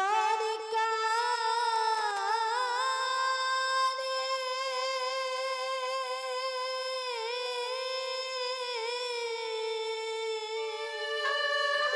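A high voice singing a drawn-out wordless melodic line, long held notes that slide and waver between pitches; it starts abruptly.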